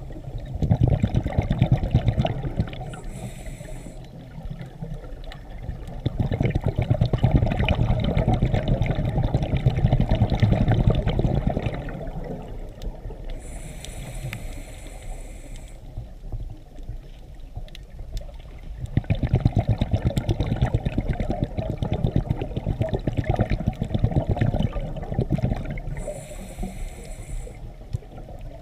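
Scuba diver breathing through a regulator: long stretches of bubbling exhaust bubbles alternate with shorter hissing inhalations, about two full breaths.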